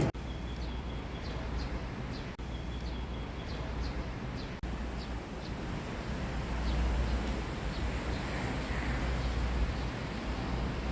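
Outdoor ambience: short, high chirps of small birds repeat over a steady low rumble and hiss, and the sound drops out briefly twice.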